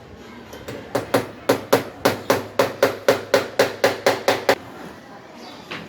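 Hammer blows in a quick, even run of about fifteen strikes, roughly four a second, each with a short ring, stopping about four and a half seconds in.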